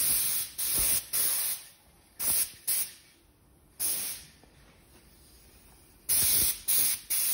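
Aerosol spray paint can hissing in short bursts of about half a second each, about nine in all, with a pause of a couple of seconds in the middle, as black paint is sprayed onto a car's fuel tank.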